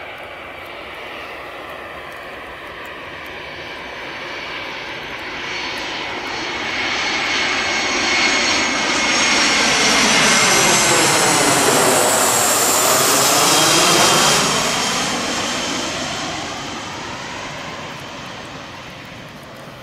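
Boeing 737 airliner's jet engines flying low overhead on landing approach with gear down. The noise builds steadily, is loudest around the middle, then fades as the plane flies on away.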